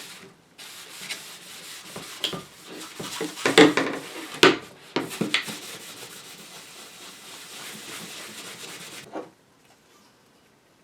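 Fine 000 steel wool wet with naphtha rubbed over the shellac finish of a radio front panel in scrubbing strokes, stripping the old wax and the top layers of shellac. The rubbing starts about half a second in, has a few harder strokes in the middle, and stops about nine seconds in.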